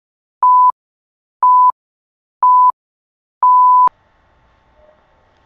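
Radio time-signal pips marking the hour: short steady beeps about one a second, the last one longer, ending about four seconds in.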